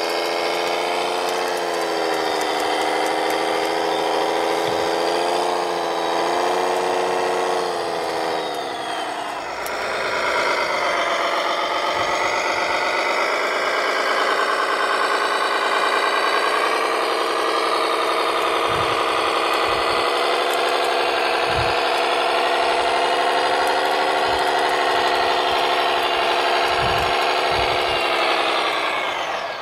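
Motor of a radio-controlled model construction machine running steadily with a whining hum. The pitch sags about a third of the way in, then picks up and holds again, with a few soft low thumps in the second half.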